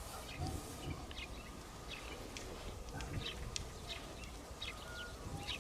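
Birds chirping: many short, scattered high chirps over a low background rumble.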